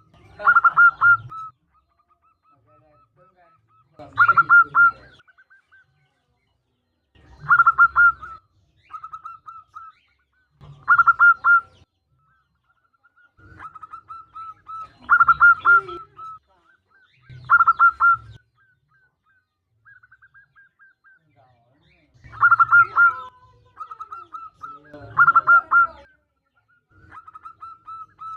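Female zebra dove (perkutut) calling: eight loud bursts of rapid cooing notes, roughly every three seconds, with softer runs of quick trilled notes at the same pitch between them.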